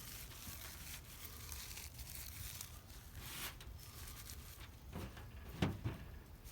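Faint rustling and crinkling of dry magnolia wood shavings and scrapings being handled and sorted, with a couple of light clicks about five seconds in.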